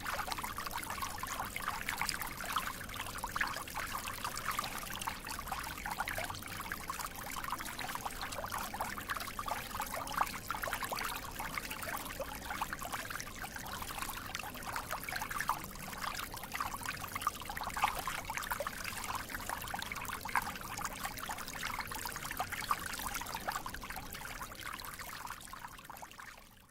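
Water flowing and trickling steadily, full of small bubbling splashes, then fading out near the end.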